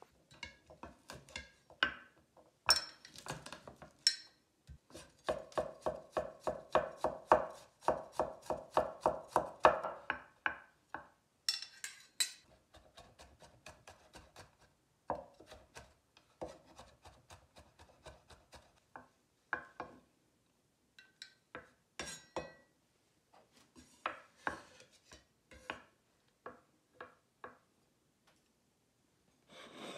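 Chinese cleaver chopping garlic on a wooden cutting board: a series of sharp knocks, with a fast, even run of about four chops a second in the middle and sparser strokes toward the end.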